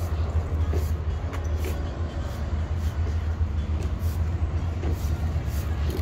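Steady low rumble of road traffic.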